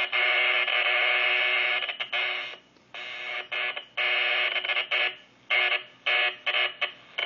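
CB radio receiver putting out a buzzing interference tone that keeps cutting in and out abruptly at an irregular pace, clicking at each break. The uploader does not know its cause.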